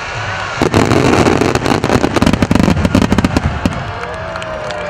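Starmine firework barrage: aerial shells fired in rapid succession and bursting in a dense run of booms and cracks, heaviest from about one to four seconds in, then thinning near the end into lighter crackles.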